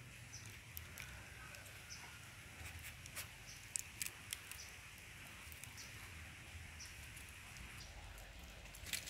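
Faint, scattered crackles and ticks of dry leaf litter as a common palm civet noses and scratches through it, with a louder cluster of crackles near the end.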